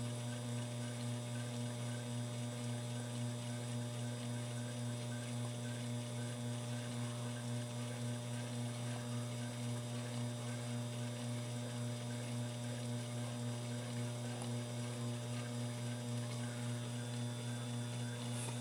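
Sherline mill's spindle motor running steadily, an even electric hum that holds the same pitch and level throughout.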